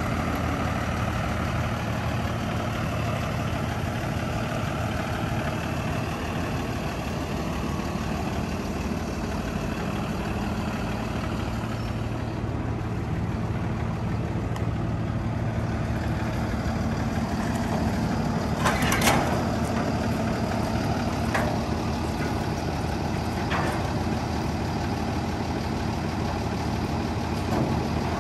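Freightliner M2106 dump truck's diesel engine idling steadily. A few short, sharp sounds come over it in the last third, the strongest about two-thirds of the way in.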